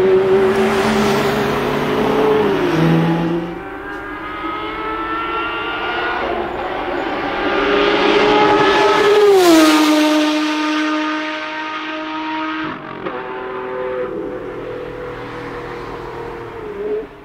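Maserati MC12 Corsa's 6.0-litre V12 racing car engine running at high revs, its pitch sliding down sharply about two and a half seconds in and again, with a loud rush, as it goes past about nine and a half seconds in. After that it carries on at a lower, steadier pitch.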